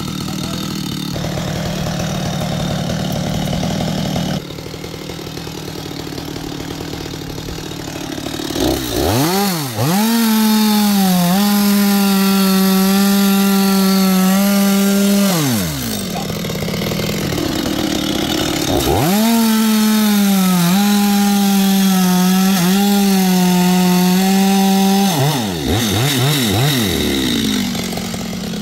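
Stihl chainsaw cutting into a coconut trunk: it runs at a lower speed for the first few seconds, then goes to full throttle twice for about six seconds each. The pitch sags and recovers as the chain bites the wood, and there is a shorter rev and drop near the end.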